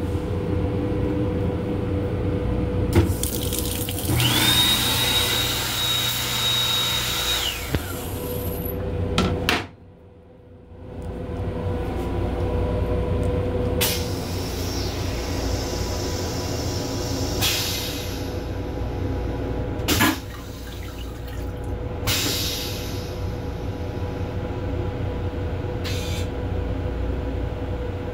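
Steady rumble of an M7 commuter railcar in motion, heard inside its small restroom. From about three to eight seconds in, the combined dryer, faucet and soap sink unit runs with a loud rush and a steady high whine, and shorter rushes follow later.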